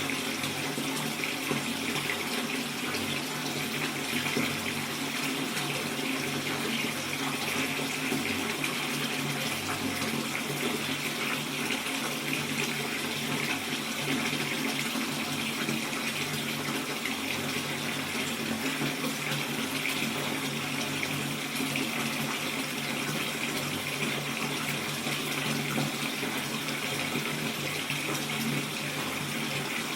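Water running from a tap into a bathtub as it fills, a steady rushing splash.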